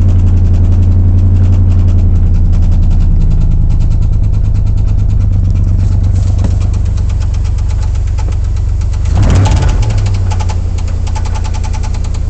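LQ4 6.0-litre V8 in a 2003 Silverado 2500HD running with a steady, rapid knocking: rod knock, according to the owner. The engine is briefly blipped about nine seconds in, then settles back to idle.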